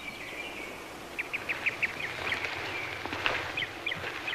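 Birds chirping in quick runs of short, high notes over a low outdoor hiss.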